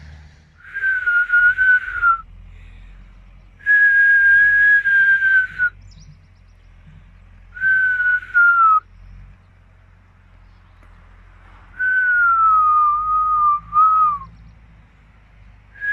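A person whistling four long notes, each sliding slightly downward, the last one wavering near its end, to call an ostrich over.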